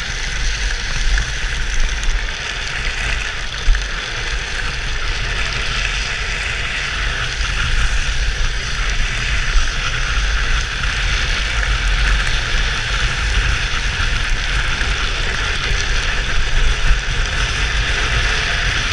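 Drift trike rolling fast down asphalt: a steady scraping hiss from its PVC-sleeved rear wheels sliding on the pavement, with wind rumbling on the helmet-mounted camera.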